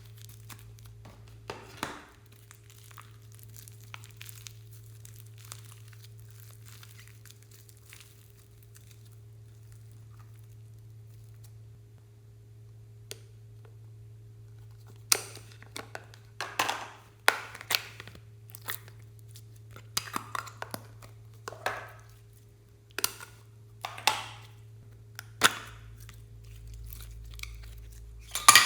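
Slime being squeezed and worked by hand: faint crackling at first, then, about halfway through, a run of louder sharp crackling pops at irregular intervals. A steady low hum runs underneath.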